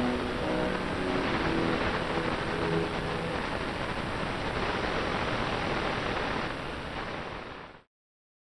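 Steady rushing noise of an RC car driving on asphalt, picked up by its onboard camera: wind and tyre noise. It fades and cuts off shortly before the end.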